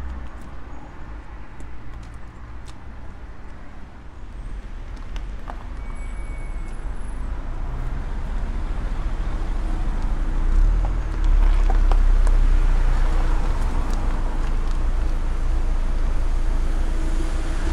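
Street traffic: a motor vehicle's engine rumbling nearby, growing louder about halfway through and staying close and steady after that.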